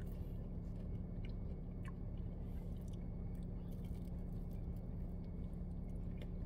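A person chewing a fried cheesecake bite with a few faint small clicks. Under it is a steady low hum of the car cabin.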